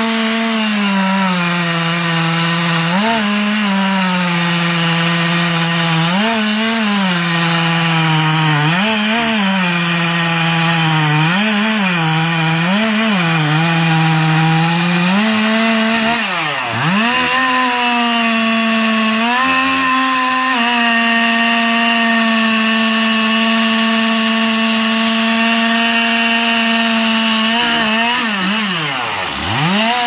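Chainsaw cutting into a felled trunk, the engine pitch sagging and recovering about every second and a half as the chain bites into the wood. About midway it drops sharply toward idle and revs back up, then runs steady at high speed, dipping once more near the end.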